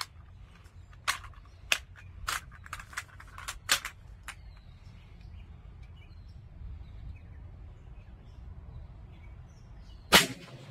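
BinTac M50 .50-calibre pre-charged air pistol firing a single sharp, loud shot about ten seconds in. Before it come several light clicks and knocks in the first few seconds.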